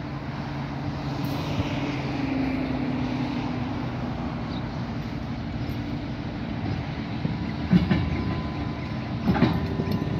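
Ballast hopper cars of a work train being pushed slowly toward the listener by a diesel locomotive: a steady engine drone, then wheel clatter and sharp knocks from the cars that grow louder near the end as the lead hopper draws close.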